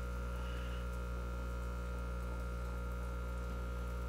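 Steady electrical mains hum: a low drone with a few fainter steady tones above it, unchanging throughout.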